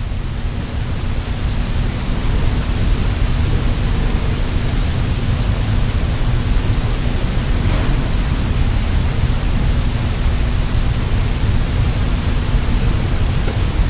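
Steady loud hiss with a low rumble and a faint hum underneath, swelling slightly in the first couple of seconds and then holding level. It is the room's background noise, with no other sound.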